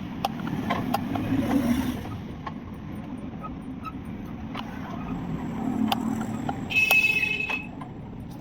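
A steady low vehicle-like hum with scattered sharp clicks and knocks, and a short high-pitched tone with overtones about seven seconds in.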